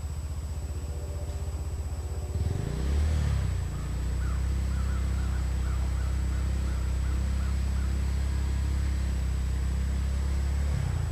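Engine of a 2008 Yamaha Raptor 350 ATV running at low revs, with one brief rev about three seconds in, then settling back to a steady low running note.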